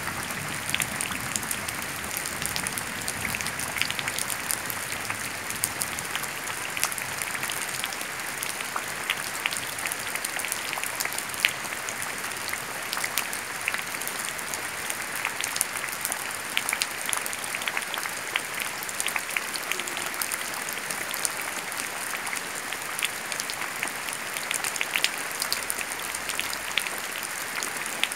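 Rain dripping into a shallow muddy puddle: a steady hiss of falling water with many small ticks of drops hitting the surface. The drops are heavy enough to raise bubbles on the water.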